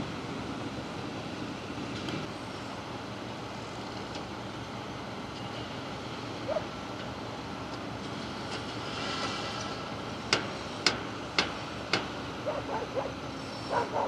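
Steady quayside background noise with a low machinery hum and a brief hiss about nine seconds in. This is followed by four sharp knocks about half a second apart, then a dog yapping near the end.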